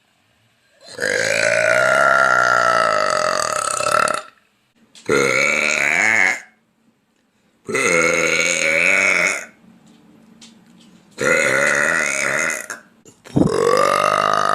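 A woman burping loudly five times in a row. Each burp is long and pitched, the first lasting about three seconds, and the last begins near the end.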